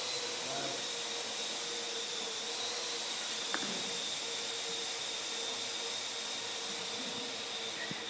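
Parrot AR.Drone quadcopter's four electric motors and propellers whirring steadily with a high whine as it hovers. A single sharp click about three and a half seconds in.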